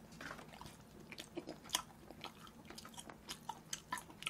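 A mouthful of soy-braised chicken (jjimdak) being chewed close to the microphone: a quiet, irregular scatter of small wet clicks and smacks.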